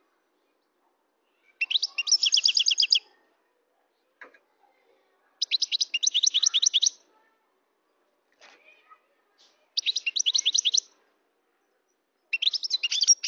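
European goldfinch singing in four short bursts of rapid, high twittering trills, with pauses of a couple of seconds between them.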